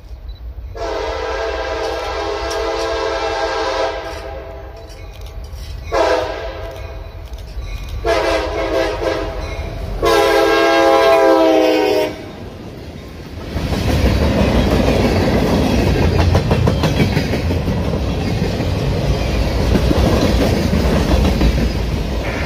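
A CSX freight train's diesel locomotive horn sounds four times, with a long blast first and then a short one. From about halfway through, the four-axle locomotives and freight cars pass close by: engines running, and steady wheel noise with rapid clicking over the rail.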